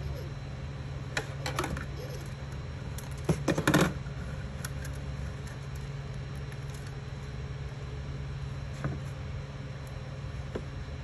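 Steady low hum from a Creality Ender 3 3D printer, with light clicks here and there and a short burst of louder clicking and rattling about three and a half seconds in, while filament is pushed through its extruder.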